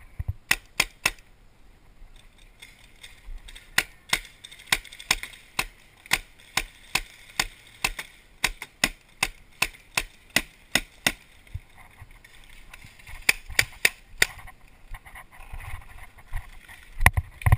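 Paintball markers firing: a rapid string of sharp pops, about two to three a second, thinning out after about eleven seconds with a few more shots near the end.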